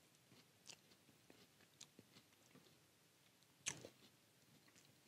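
Near silence with a few faint small clicks and scrapes of a table knife spreading a soft spread onto a cracker, and one slightly louder knock a little past halfway as the knife touches the cracker or board.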